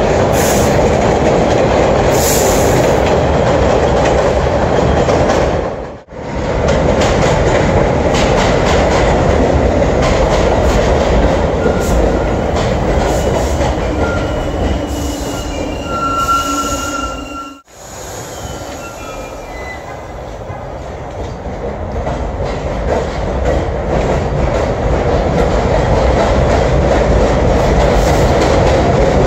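Subway train on elevated track: steady wheel rumble and clickety-clack, cut twice into separate shots. Brief high squealing tones come from the wheels in the middle shot. After the second cut the train noise starts quieter and builds steadily.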